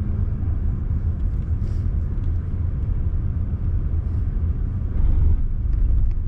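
Low, steady rumble of a car driving, heard from inside the cabin, growing louder about five seconds in.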